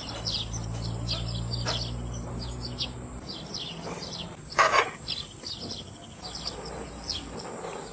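Small birds chirping over and over in quick short notes, with a low steady hum that fades out about three seconds in and a single brief louder noise a little past the middle.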